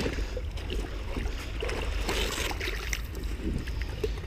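Water sloshing around a large wels catfish held in the shallows, over a steady wind rumble on the microphone; the splashing is strongest about two seconds in.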